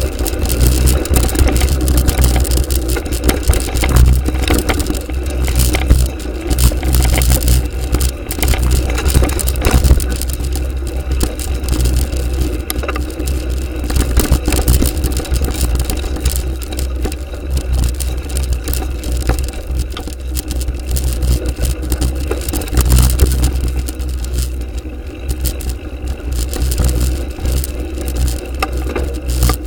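Mountain bike riding fast down a dirt trail: wind rumbles heavily on the action camera's microphone, while the bike rattles and the tyres scrape and knock over loose ground and bumps in a constant stream of small clicks.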